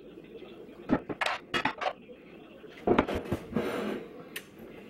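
A blue glass baking dish handled and set down on a granite countertop: a few light knocks, then a louder clatter of glass about three seconds in and a last sharp tick.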